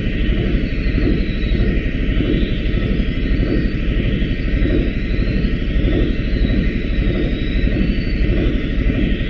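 Steady machine noise: a dense, continuous rumble with a faint high whine that slowly wavers in pitch.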